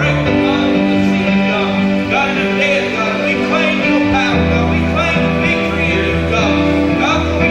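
Live gospel worship music from a small band: bass guitar and keyboard holding chords that change every second or two, with drums and singing over them.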